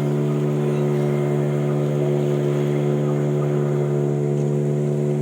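Motorboat engine running at a steady, even speed, a constant low hum.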